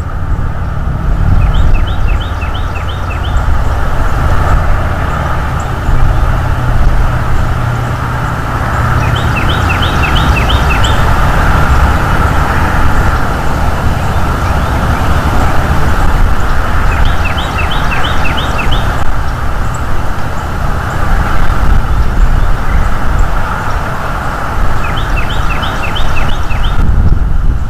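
Steady, loud background rumble, with a small songbird four times singing a short, quick run of about six repeated notes, roughly every eight seconds.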